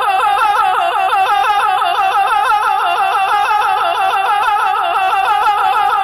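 Persian classical music in dastgah-e Mahur: a fast ornamented melodic line of quick repeated pitch turns, about six to seven a second.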